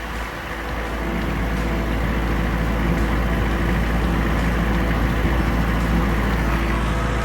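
Tractor engine running steadily, getting louder about a second in and then holding, as the tractor pushes brush with the ratchet rake on its front bucket.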